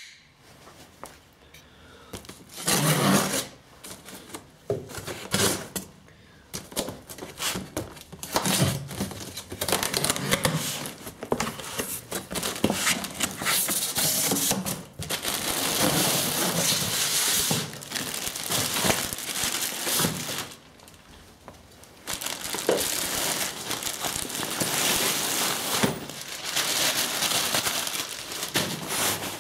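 A cardboard shipping box being opened and unpacked by hand: a serrated knife slitting the packing tape, cardboard flaps pushed back, and a clear plastic bag crinkling and rustling as the backpack inside is handled and pulled out. The rustling comes in irregular bursts, with a few quieter pauses.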